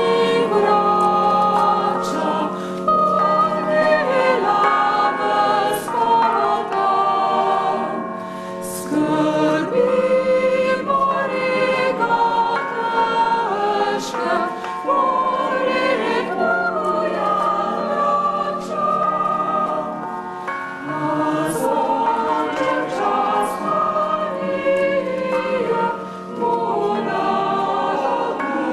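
A choir singing a sacred piece, held notes moving from chord to chord, with a steady low hum beneath.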